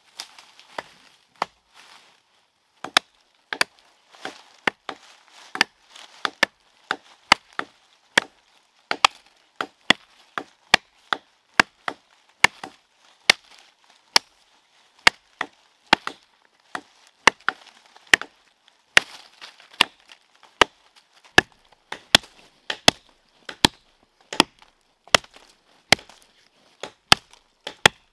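Repeated chopping, a blade striking wood: sharp single blows about once a second that begin a few seconds in and keep a steady rhythm.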